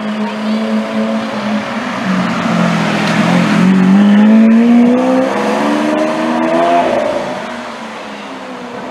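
Lamborghini Aventador Roadster's V12 engine running at a steady low pitch, then accelerating about three seconds in, its pitch rising steadily for about three seconds before it cuts off abruptly and fades.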